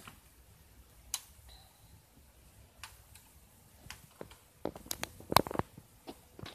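Small wooden blocks clicking and knocking against each other and against a plastic toy forklift as they are stacked by hand: a few scattered taps, then a quick run of knocks about five seconds in.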